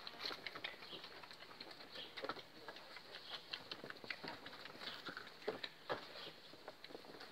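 Presa Canario puppies romping about, a faint scattered patter of small clicks and scuffs from their play.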